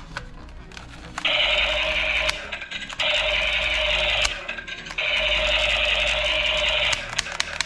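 Battery-powered toy submachine gun's electronic firing sound effect, played three times as loud buzzy rattles from its small speaker, the last about two seconds long, with sharp plastic clicks between and after.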